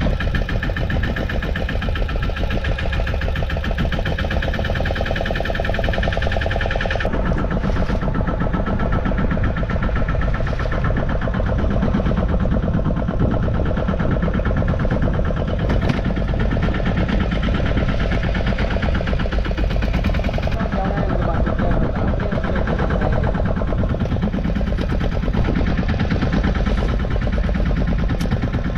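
Small fishing boat's engine running steadily, a continuous, even pulsing drone.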